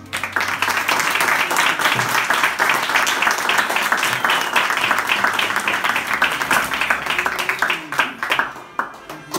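A small group applauding, many hands clapping steadily, thinning out to a few last separate claps near the end.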